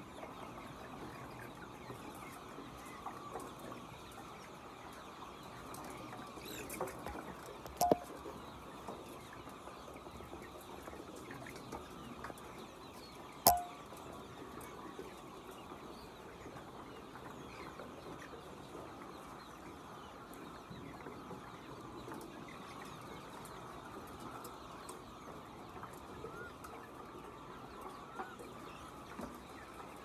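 A large flock of white chickens clucking and calling all together in a steady chatter. Two short, sharp loud sounds cut through it, about a quarter and a half of the way in.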